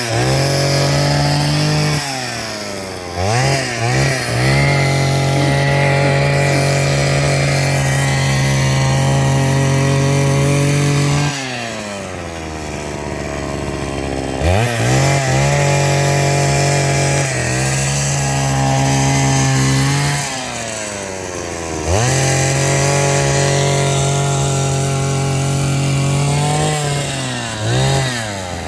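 Small two-stroke engine of a handheld power tool held at high revs for long stretches. It drops back to idle about a third of the way in, again two-thirds in and near the end, with quick throttle blips before climbing back to full speed.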